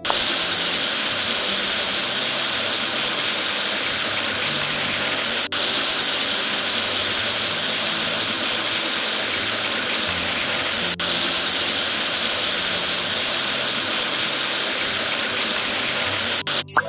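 A loud, steady hissing rush that drops out for an instant twice, about every five and a half seconds, then stops shortly before the end.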